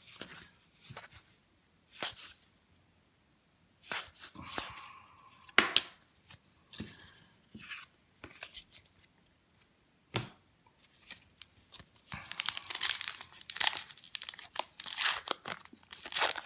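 Baseball cards being handled and flicked through, with scattered sharp snaps, then from about two-thirds of the way in a 2018 Topps Heritage baseball card pack's crimped wrapper being torn open, crinkling steadily.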